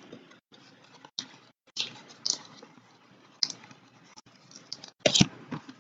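Scattered soft clicks and taps of hands handling and opening a slim trading-card box, the loudest knock about five seconds in.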